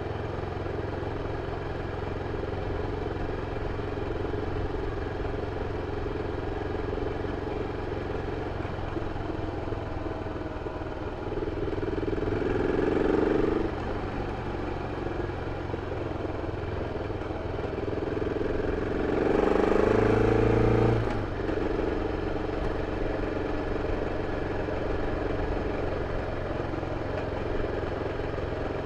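BMW F 650 CS single-cylinder engine on its original exhaust, running steadily at low speed. Twice it speeds up, its note rising and growing louder for about two seconds, then drops back: once about twelve seconds in and again about nineteen seconds in.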